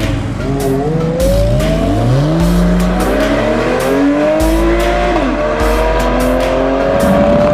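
A supercar engine accelerating hard, its pitch climbing steadily, dipping briefly at a gear change about five seconds in, then climbing again. Background music with a heavy bass runs underneath.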